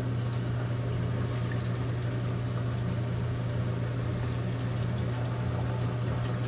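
Jerusalem artichoke pieces deep-frying in oil at about 180 °C: the oil bubbles and sizzles steadily with light crackles as more pieces are dropped in, the rising bubbles a sign the pieces are cooking well. A steady low hum runs underneath.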